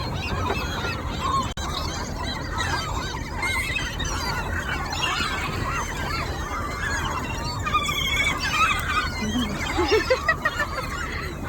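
A flock of seagulls calling all at once, many overlapping squawks and wavering cries, growing louder near the end, over a steady low rumble.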